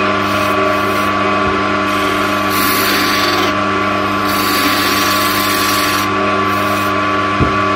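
Wood lathe running with a steady hum while a hand-held turning tool cuts the inside of a spinning linden (basswood) workpiece, giving several hissing scraping passes that start and stop. A single short knock comes near the end.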